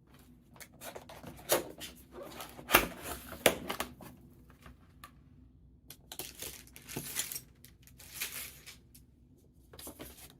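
Keyboard packaging being handled and opened: spells of rustling and crinkling, with a few sharp knocks, the loudest a little under three seconds in.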